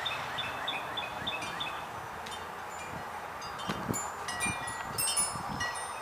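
Wind chime tinkling: several metallic strikes with thin, high ringing tones from about three and a half seconds in. Before that, a bird sings a quick run of short, high repeated notes for the first second and a half.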